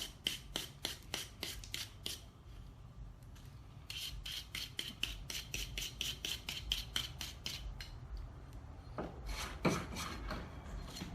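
Brushing or scraping strokes on a forged rebar hook to clean the soot off the cooled steel, quick and even at about five strokes a second, in two runs with a pause between. Two louder knocks come near the end.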